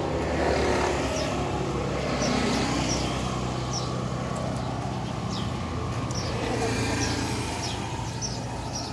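A steady low engine hum, like a motor vehicle running close by, with small birds chirping short calls about once a second.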